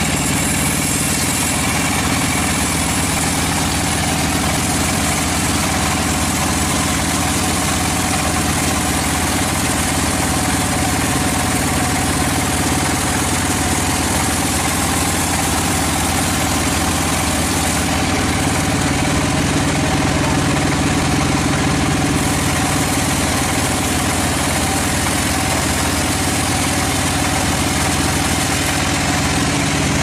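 Band sawmill running with a steady hum as its band blade saws lengthwise through a large log.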